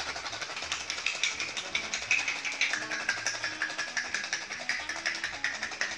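Ice cubes rattling fast and steadily inside a capped stainless steel cocktail shaker being shaken hard, mixing and chilling a whisky sour of bourbon, lemon juice and sugar syrup.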